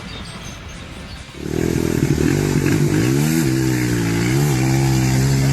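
An engine comes in about a second and a half in, its pitch falling and settling, then runs steadily with a couple of brief dips in pitch.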